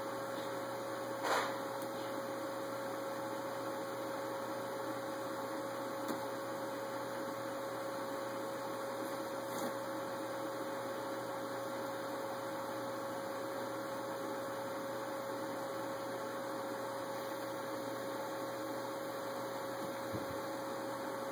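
Steady electrical hum with a constant mid-pitched tone, broken by one brief faint sound about a second in and a few tiny clicks.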